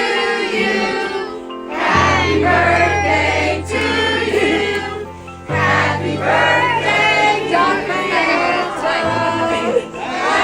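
Music: a choir singing over long held bass notes that shift about every three and a half seconds.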